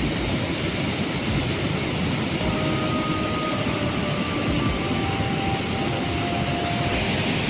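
Steady rushing roar of a waterfall pouring over rocks into a pool.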